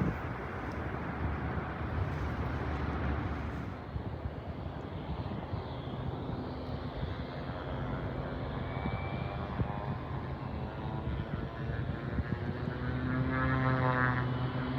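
Light propeller airplane engine running with a steady drone that comes up about five seconds in and grows louder toward the end, over a rushing wind-like noise at the start.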